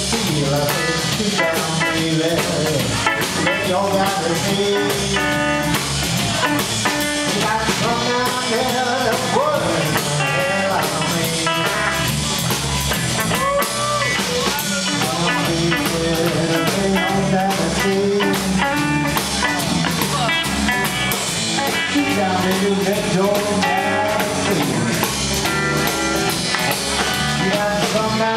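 Live blues band playing: electric guitar lines with bends over bass and a Yamaha drum kit.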